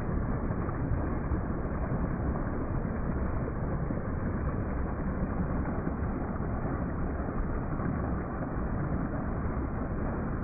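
Small waterfall pouring over rock into a shallow pool: a steady, unbroken rush of falling and splashing water.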